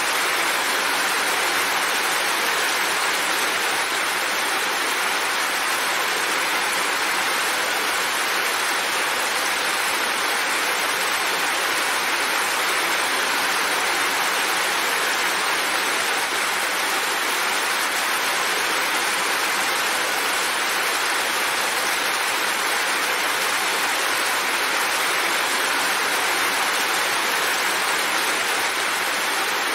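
Heavy rain falling steadily: a dense, even hiss with no single drops or gusts standing out.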